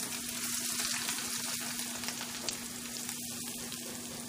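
Hot tempering oil with mustard seeds, curry leaves and spices sizzling steadily in a wok, tipped out onto a bowl of mashed boiled potatoes near the end. A steady low hum sits beneath.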